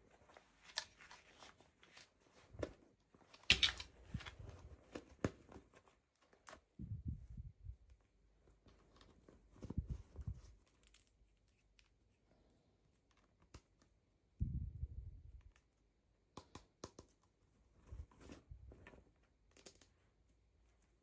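Toy packaging being handled and opened: irregular tearing, crinkling and small clicks, with a few soft thumps and short quiet gaps between.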